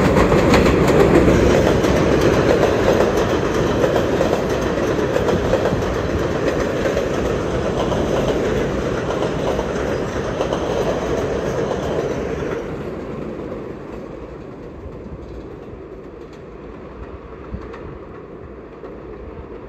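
New York City subway train running by, its wheels clattering over the rail joints. It is loudest at the start and dies down after about twelve seconds.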